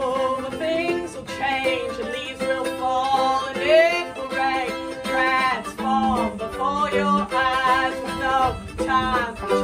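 Ukulele and mandolin strummed together in a folk song, with a woman singing over them.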